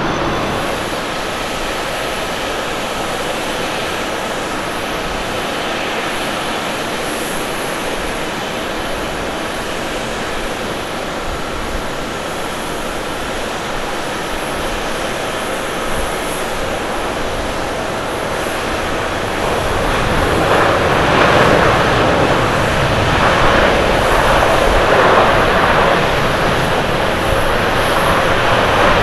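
Jet airliners on the runway after touchdown, first a Boeing 737 and then a Boeing 787: a steady rush of engine and rollout noise. The noise grows markedly louder about two-thirds of the way in and stays loud.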